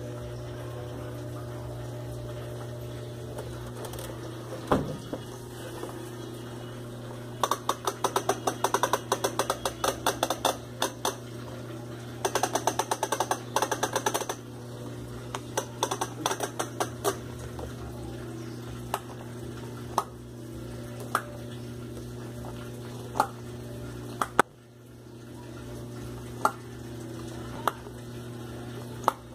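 Washing machine running with a steady hum. It is broken by two runs of rapid clicking rattles, about seven to fourteen seconds in, and then scattered single clicks.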